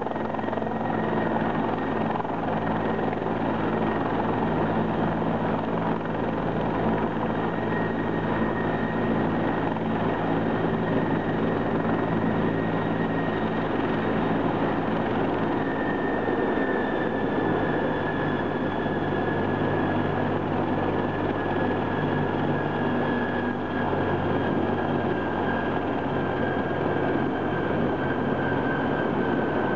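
A landed fire department helicopter running on the ground with its rotors turning: a steady turbine whine over the rotor noise. The whine drops a little in pitch about halfway through.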